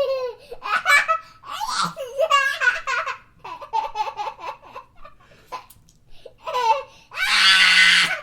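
Baby laughing and giggling in bursts of quick, repeated, high-pitched pulses, ending in a loud, breathy squeal about seven seconds in.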